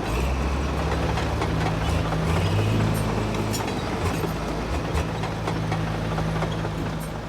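The large diesel engine of a D10 bulldozer running steadily, its pitch shifting slightly about two to three seconds in, with occasional light clanks.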